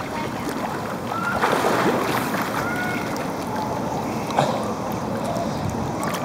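Pool water sloshing and lapping close to the microphone, with a few short high chirps in the background and a sharp splash about four seconds in.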